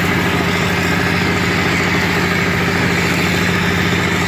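Wall-plastering machine's engine running steadily at one even speed, a constant hum that holds its pitch.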